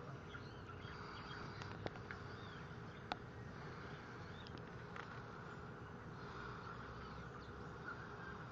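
Faint, steady buzzing background noise, with two short sharp clicks about two and three seconds in.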